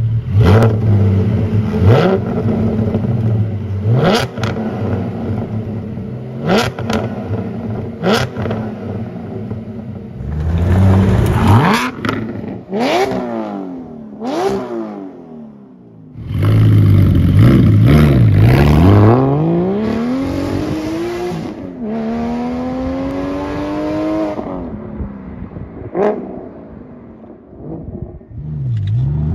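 Porsche 718 GT4's 4.0-litre flat-six through a straight-through race exhaust and street headers: idling with a run of short, sharp throttle blips, then pulling away and accelerating hard in several rising sweeps of engine pitch, with one sharp crack near the end.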